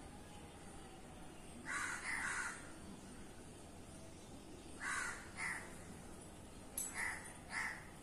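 Crow cawing: six short caws in three pairs, a pair about every two and a half seconds.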